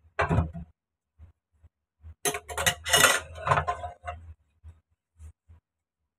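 Ceramic plates and a spoon clinking and knocking against each other and the stainless-steel sink as they are scrubbed with a sponge, with the busiest clatter about two to four seconds in.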